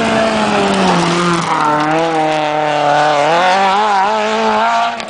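Rally car engine running hard on a gravel stage. Its pitch drops about a second in, then holds and rises and falls with the throttle.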